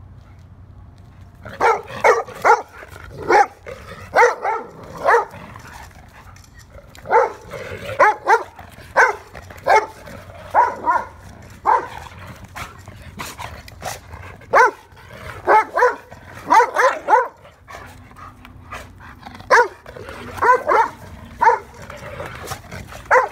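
Dogs play-fighting and barking: short, sharp barks, singly or in quick runs of two or three, recurring irregularly every second or so, starting about a second and a half in.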